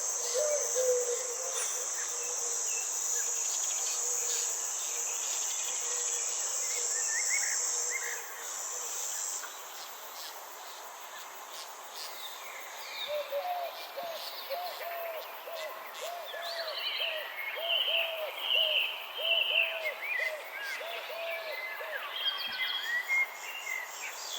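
Garden ambience: a steady high insect trill, crickets or similar, that drops out about nine seconds in and comes back near the end, with birds calling over it. In the middle there is a run of about a dozen quick repeated low notes, with scattered higher chirps and twitters later.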